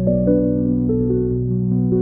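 Background music: a calm new-age style track with soft keyboard notes over a sustained bass.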